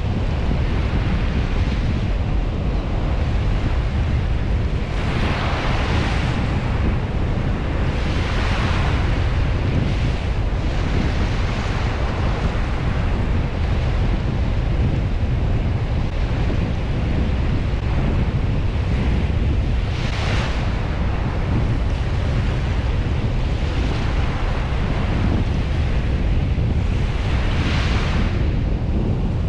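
Surf washing onto a beach, with wind buffeting the microphone in a steady low rumble. The hiss of the waves swells louder a few times: about five, eight, twenty and twenty-eight seconds in.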